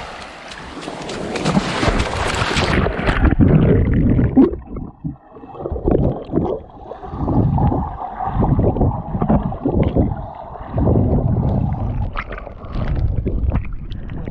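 Sea water and splashing for the first few seconds, then the sound turns suddenly dull and muffled as the microphone goes under the water. Underwater swimming sounds follow: repeated muffled whooshes and bubbling, about one a second.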